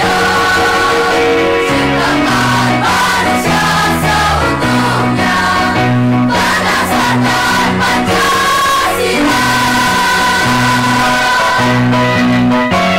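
Large combined school choir of primary and junior-high pupils singing a song, the notes held and changing steadily without a break.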